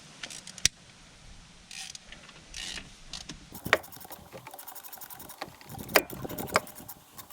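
Hand tools working the alternator's top bolt in the engine bay: metal clinks and several sharp knocks, with fast light ticking through the second half.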